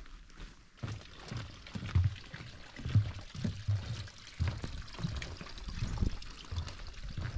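A hiker's footsteps on a forest trail, low thuds about two to three a second, over a steady trickle of running water.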